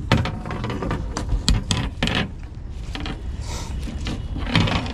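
Fishing reel clicking and ratcheting as a fish takes the line.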